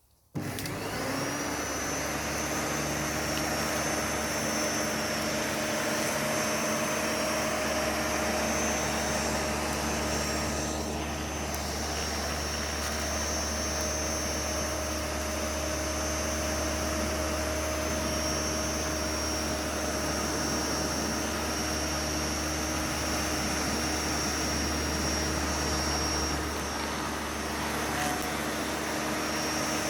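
Flymo Easiglide 300 electric hover lawnmower switched on, its motor whine rising as it spins up, then running steadily while cutting grass at its lowest height setting.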